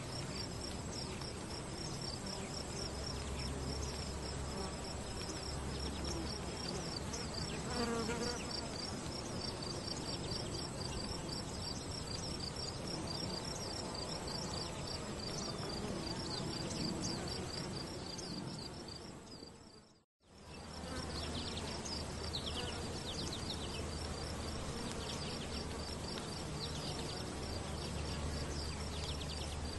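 Outdoor ambience with a steady high-pitched rapid chirring and short falling chirps over it. The sound fades out to silence about twenty seconds in and comes straight back.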